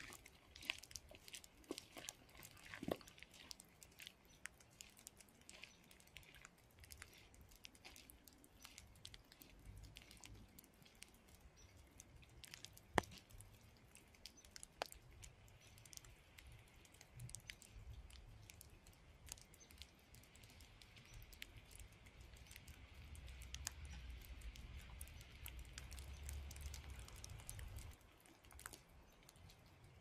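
Faint, irregular ticks and pattering of raindrops landing close to the microphone in a gentle rain. A soft low rumble builds through the second half and drops away a couple of seconds before the end.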